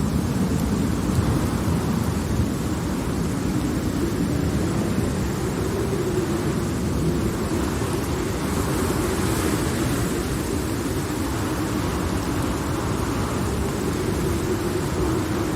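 Steady rain with a long, low rolling rumble of distant thunder, even throughout with no sharp cracks.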